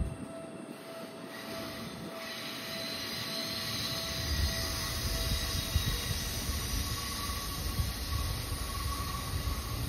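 Seibu commuter train running slowly through a sharp curve, its wheels squealing in thin, high steady tones over the rumble of the wheels on the rails. The rumble grows louder from about four seconds in.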